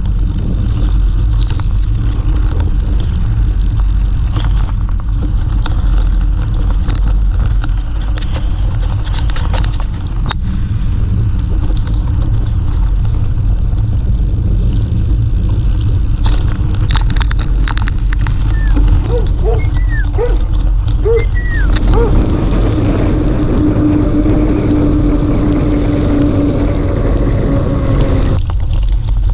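Wind rushing over an action camera's microphone while a mountain bike descends a wet track, with tyres rumbling and rattling over stones. A steady hum runs through the later part, and the sound changes near the end as the bike reaches a cobbled street.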